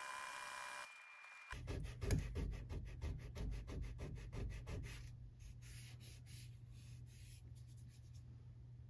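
Hand sanding of a wood-filler patch on painted door trim with a small abrasive pad. It comes as quick back-and-forth rubbing strokes, about four or five a second, that start about a second and a half in and fade out over the following several seconds.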